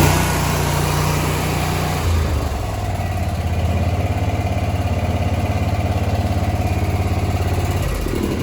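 Gravely ZT60 HD zero-turn mower's air-cooled two-cylinder Kawasaki engine running steadily. Its note drops about two seconds in and shifts again near the end.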